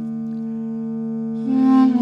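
Background music: slow, sustained held notes, with a new, louder note coming in about one and a half seconds in.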